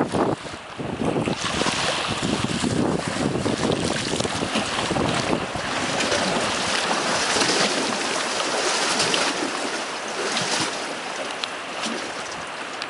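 Strong gusting wind buffeting the microphone, over the wash of waves on a lake. The low buffeting eases after about six seconds, leaving mostly the hiss of wind and water.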